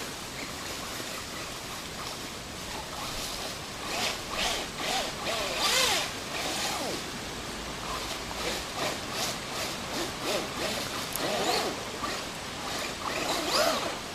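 Brushless electric motor of a Traxxas Stampede RC truck whining up and down in short throttle spurts as its tyres crunch and rustle over dry leaves and stones.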